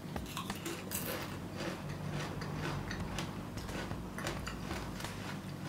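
A person chewing a crunchy chip topped with guacamole: a string of irregular crisp crunches.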